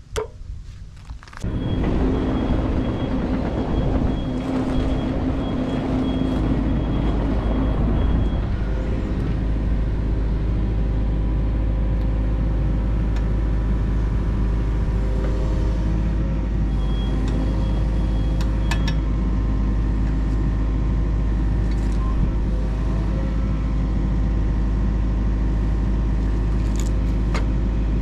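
Yanmar mini excavator's diesel engine starting up about a second and a half in and then running steadily with a low rumble, a thin high whine coming and going on top.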